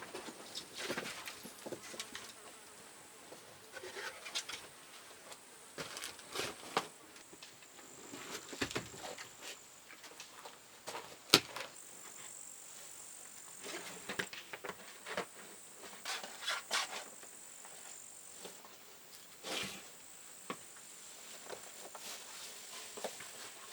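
Insects trill in a steady, high, thin band, with irregular sharp clicks and snaps scattered throughout and one louder snap about halfway through.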